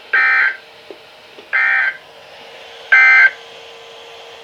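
NOAA Weather Radio SAME end-of-message data bursts: three short, harsh digital bleats about 1.4 seconds apart. They mark the end of the Required Weekly Test broadcast.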